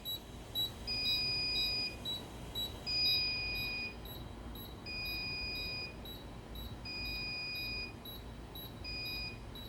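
Fire alarm system trouble sounders beeping: a short high beep about two and a half times a second, overlaid with a longer, lower beep about a second long every two seconds. The trouble signal from a donor antenna fault on the radio-repeater supervision is still sounding, not yet cleared.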